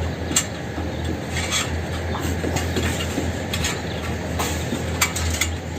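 Footsteps and scraping while walking, a scattering of short taps, over a steady low hum.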